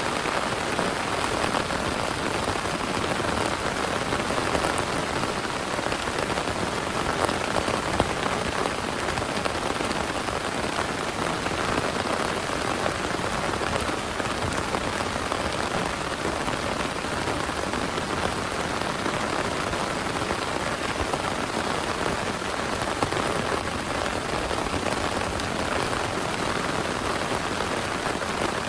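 Heavy rain falling steadily, with scattered individual drop taps.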